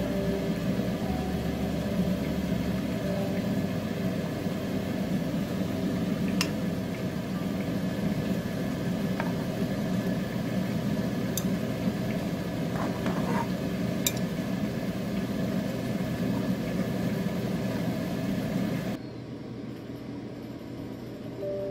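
Steady low machine hum with a few light clinks of metal tongs against a ceramic plate. The hum drops away abruptly about 19 seconds in.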